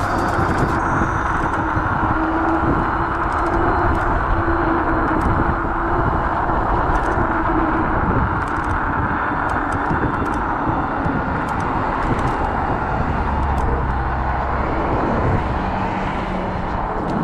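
Steady wind and road rush while riding a Kaabo Wolf Warrior electric scooter, with a faint steady hum through the first half.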